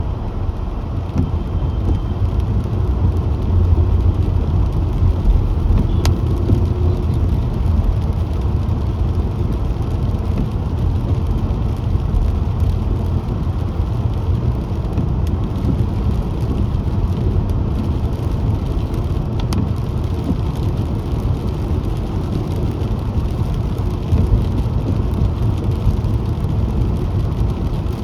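Car being driven: a steady low rumble of engine and tyres on the road.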